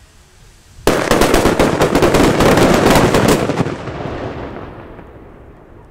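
Ground-fired firework going off about a second in as a rapid, dense string of loud bangs for roughly two and a half seconds, then dying away over about two seconds.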